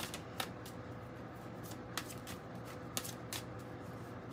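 A tarot deck shuffled by hand, the cards slipping and slapping against each other in quiet, irregular clicks.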